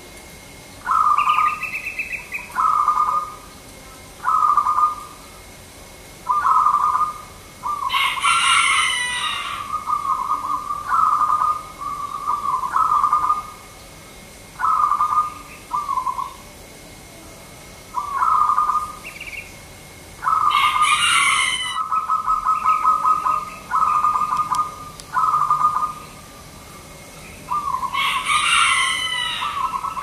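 Zebra dove (perkutut) singing: a run of short, trilled coos at a steady pitch, one after another. Another bird's louder, higher calls, each about a second long, cut in three times.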